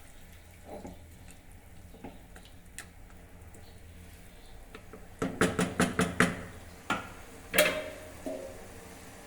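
Metal spoon stirring in a cooking pot and knocking against its sides: a quick run of taps starts about five seconds in, followed by a few separate clanks, the loudest of which rings briefly.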